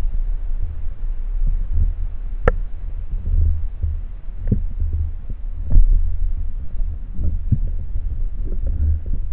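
Muffled, throbbing low rumble of water against an underwater camera housing mounted on a speargun, with a few sharp clicks, the loudest about two and a half seconds in.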